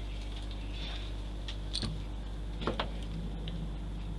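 A few light clicks and taps of small model track parts being handled and fitted, the loudest pair a little past halfway, over a steady low hum.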